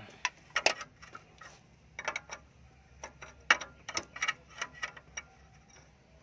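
Ratchet wrench clicking in short, irregular runs of sharp metallic ticks as a socket works loose an exhaust oxygen sensor.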